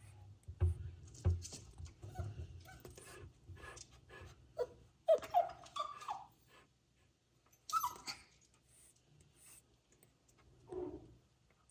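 Short, high whimpering cries from young animals, newborn kittens or the puppy, several in a row about five to six seconds in and single ones near eight and eleven seconds, over light rustling and shuffling.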